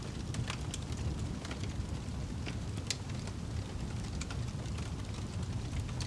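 Wood fire crackling in a fireplace: irregular sharp pops and snaps over a low, steady rumble of the flames, with one louder pop about three seconds in.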